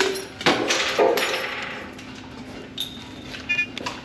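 Two sharp knocks of kitchenware about half a second and a second in. Near three seconds comes a short high electronic beep, then a quick run of beeping tones from an electric range's keypad as the oven is set.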